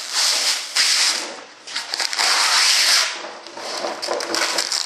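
Peel ply being pulled off a cured composite layup by hand: a crackling rip as the fabric tears away from the hardened resin, in about three long pulls.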